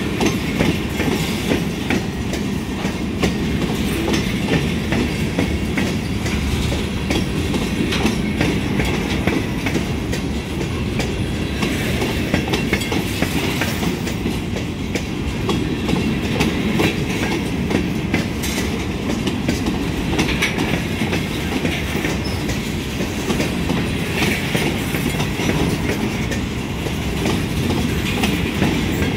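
Freight train's covered hopper cars rolling past over a grade crossing: a steady rumble of steel wheels on rail with continuous clickety-clack clatter.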